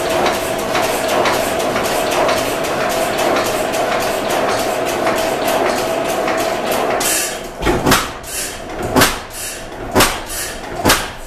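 Pattin Brothers four-cycle oilfield engine running slowly, firing about once a second. A steady hiss with a faint held tone covers the beat for the first several seconds. About seven seconds in the hiss stops, leaving four sharp firing beats about a second apart.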